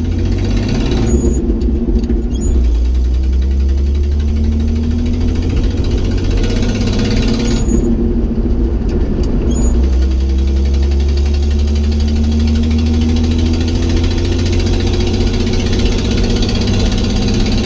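Inline-six engine of a 1969 GMC 2500 pickup accelerating through the gears of its 4-speed manual, heard inside the cab. The engine's pitch climbs, drops back during upshifts about a second in and about eight seconds in with a light click each time, then climbs again.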